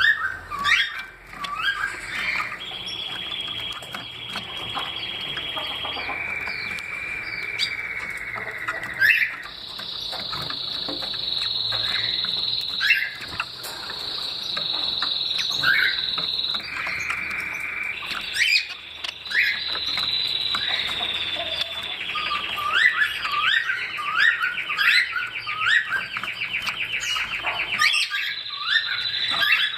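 Cage songbirds singing: a string of long trills, each held at one pitch for a few seconds before jumping to a higher or lower one, with short chirps scattered over them.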